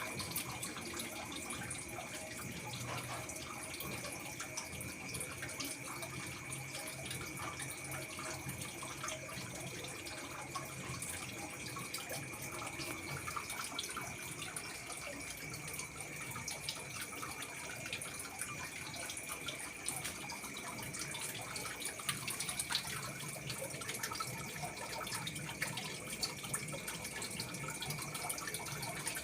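Water running and splashing steadily, with a thin, steady high tone under it.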